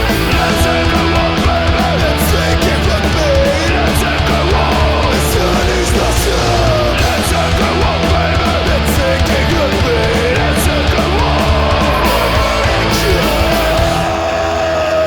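Loud punk rock recording: distorted electric guitars, bass and drums, with a line of bending, sliding notes running over them. The cymbal strikes thin out about a second before the end.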